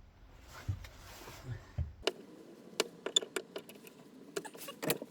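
Scattered light metallic clicks and clinks of hand tools and screws being handled during disassembly. About two seconds in, the faint low rumble stops abruptly and the clicks come thicker, with a few louder knocks near the end.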